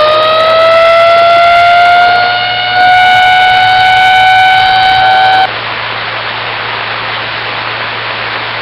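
A loud siren-like tone that slides slightly up in pitch over the first couple of seconds, then holds steady, dips briefly in loudness about two and a half seconds in, and cuts off suddenly about five and a half seconds in. A steady background hiss and low hum remain after it.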